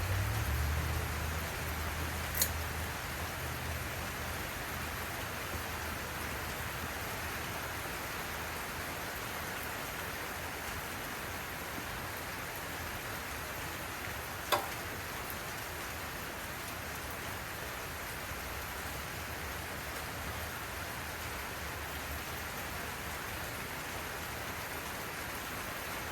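Steady hiss of heavy rain pouring down, with a low hum that fades away and two sharp clicks, one about two seconds in and one near the middle.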